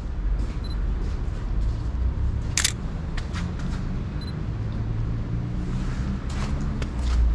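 A Sony A7C's shutter fires once, a sharp click about two and a half seconds in, over a steady low street rumble.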